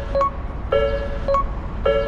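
Japanese railway level crossing warning bell ringing: an electronic ding repeating at a steady pace, a little under once a second.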